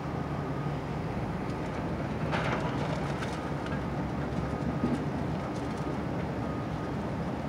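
Excavator diesel engine running steadily under load as it demolishes the building, with a brief crash of breaking debris about two and a half seconds in.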